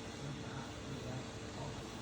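Dog blow dryer running steadily: a continuous rush of air with a faint steady tone under it.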